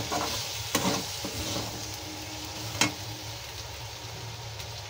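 Diced potatoes and spices sizzling in oil in a steel kadhai while a metal spatula stirs and scrapes them. The spatula knocks sharply on the pan twice, about a second in and near the middle.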